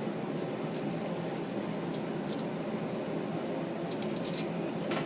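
Small metal hand tools, sockets and bits, clinking against each other a few times, over a steady fan-like hum.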